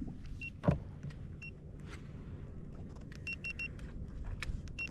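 Short high electronic beeps, one at a time at first, then a quick run of four, over a low steady hum, with a single knock about 0.7 s in.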